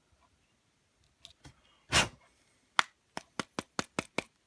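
Small metal tool clicking and scraping against the Samsung Galaxy S5's charging port while the port is being cleaned out: one louder knock about two seconds in, then a quick run of about seven sharp clicks, roughly five a second.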